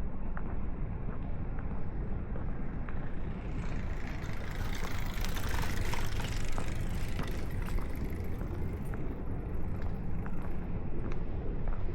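A vehicle driving past close by, its noise swelling for a few seconds to a peak near the middle and then fading away, over footsteps and a steady low rumble.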